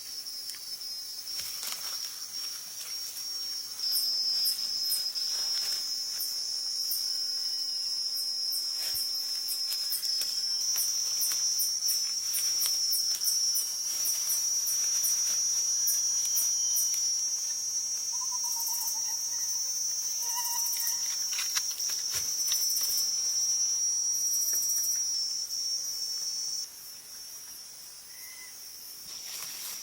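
Insects in the jungle keeping up a steady high-pitched drone. It swells about four seconds in and drops off sharply a few seconds before the end.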